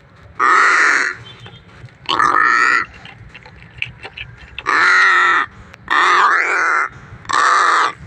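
Crow cawing: five loud, harsh caws, each lasting well over half a second, spaced about one to two seconds apart.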